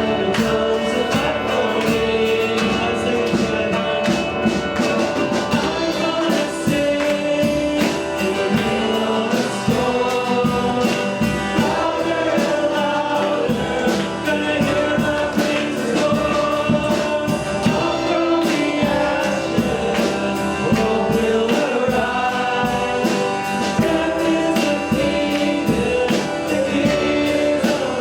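Church worship song: a group of voices singing over band accompaniment with a steady drum beat.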